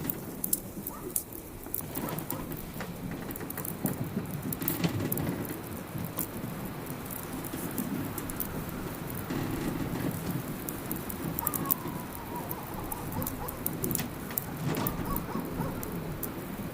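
Fire crackling with irregular sharp pops over a steady low rumble. About twelve seconds in, a faint short falling cry sounds in the background.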